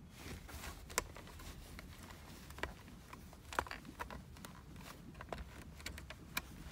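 Faint, scattered clicks and taps of plastic toy building bricks being handled and pressed onto a baseplate, with a few sharper clicks spread through.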